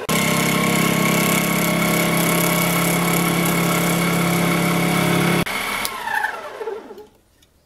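Small Harbor Freight metal lathe running loud and steady while turning a piece of wood. It cuts off abruptly about five and a half seconds in, and the motor winds down with a falling whine until it stops about a second later.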